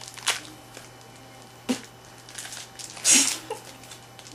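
Plastic lollipop wrapper crinkling and rustling in a few short bursts as it is worked open by hand and mouth, the loudest about three seconds in.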